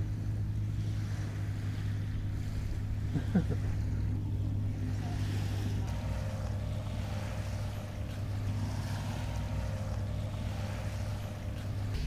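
A boat engine running steadily out on the river, heard as a low hum, with wind buffeting the microphone. A short pitched chirp stands out about three seconds in.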